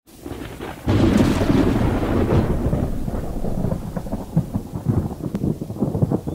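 A thunderclap breaks sharply about a second in and rumbles away over the next two seconds. Rain pattering with many small drops fills the rest.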